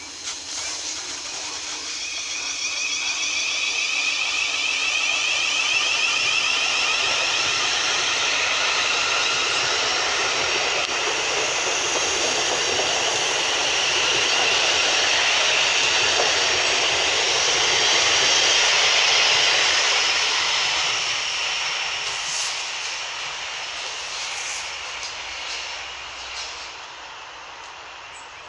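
Thameslink Class 700 (Siemens Desiro City) electric train pulling out of the platform, its traction motors giving a loud whine of several tones. The whine builds over the first few seconds, holds, then fades in the last several seconds, with a few clicks near the end.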